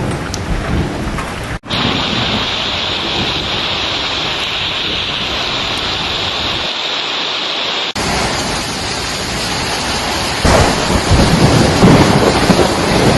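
Hailstorm: hail and rain pelting down in a dense, steady hiss. The sound changes abruptly twice, and low rumbling grows louder over the last few seconds.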